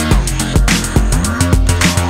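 Electronic music with a fast, driving beat and sliding synth bass notes.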